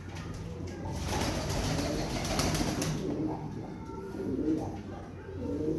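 Domestic pigeons cooing, low repeated calls, with a burst of rustling noise a second or two in.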